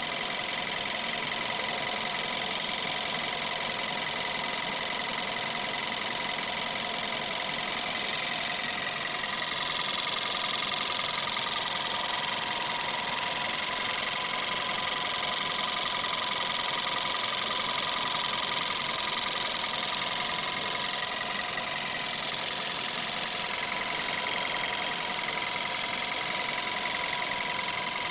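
Škoda car engine running at idle with a steady high-pitched whine, an abnormal noise the owner puts down to the water pump.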